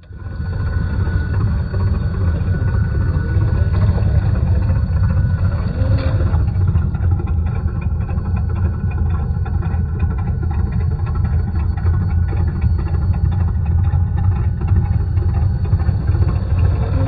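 Simulated truck engine sound from an RC rock crawler's onboard programmable sound module, a steady low engine note at idle, fading in at the very start.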